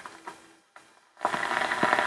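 Hallicrafters S-38 shortwave receiver being tuned by hand. A few clicks, then its speaker output drops to near silence for about half a second before static and hiss come back.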